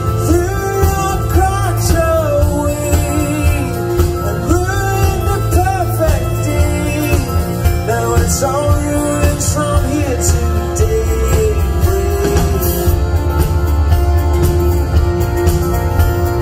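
Rock band playing live through a large PA: guitars, bass and drums over a heavy steady low end, with a melody line that bends in pitch above them.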